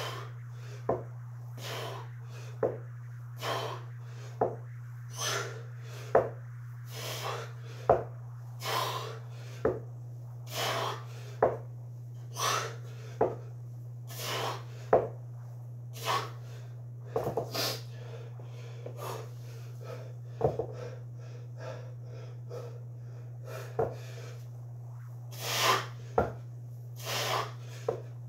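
Heavy, rhythmic breathing of a man working out with a kettlebell, a forceful breath about once a second, with a few light knocks. A steady low hum runs underneath.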